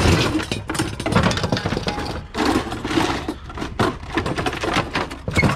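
Scrap items on a trailer bed being shoved and tossed to one side, with a metal clothes dryer pushed across the bed: a continuous run of irregular metal clatter, knocks and scraping.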